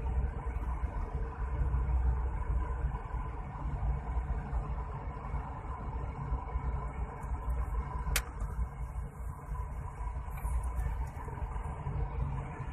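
Low, steady rumble of a car's engine and tyres heard from inside the cabin while driving slowly, with one sharp click about eight seconds in.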